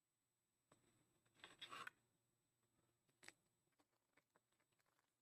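Near silence, with faint rustling and scraping and a few light clicks of trading cards and plastic holders being handled; the rustle is loudest about one and a half seconds in.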